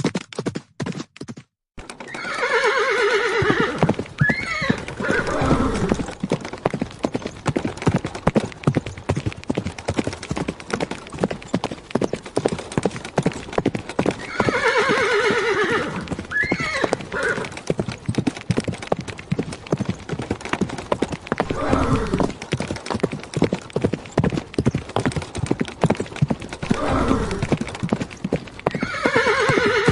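Horse hooves clip-clopping in a fast, steady run, with a horse whinnying about four times along the way. A short rhythmic beat cuts off within the first two seconds.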